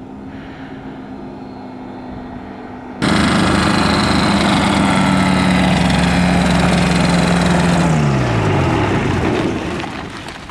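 Titan Tornado ultralight's engine and propeller idling, heard at a distance at first and then suddenly close and loud about three seconds in. Near the end the engine is shut off and its pitch falls as the propeller winds down.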